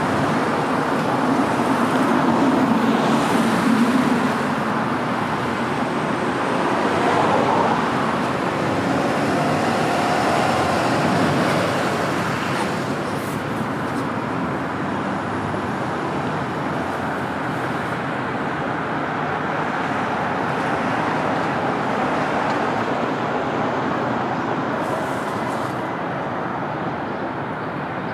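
Road traffic at an intersection: a small school bus and cars drive past, with engines and tyre noise. It is busiest in the first dozen seconds, with a low engine drone early on, then settles to a lighter, steady hum.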